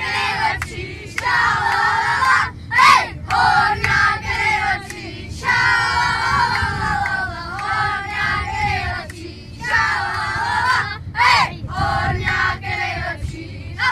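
A group of children singing together in sung phrases with short breaks between them, over the low rumble of the minibus they ride in.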